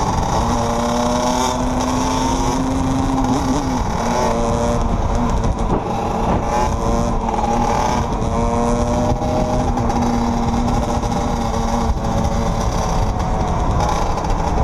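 Dirt bike engine running at road speed, its pitch shifting up and down with the throttle, under a heavy rush of wind on the microphone.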